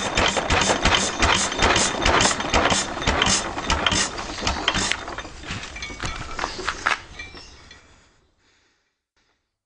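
A 2 HP Sundial Type B stationary engine running with a rhythmic mechanical clatter. From about five seconds in, the knocks grow quieter and further apart as the engine slows and dies away to silence.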